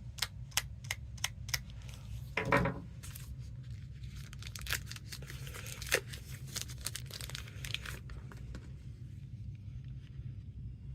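Plastic and paper packaging being handled and pulled apart while a product box is unpacked: a quick run of sharp clicks and crinkles, a short pitched sound about two and a half seconds in, then more scattered crinkling that dies down after about eight seconds, over a steady low hum.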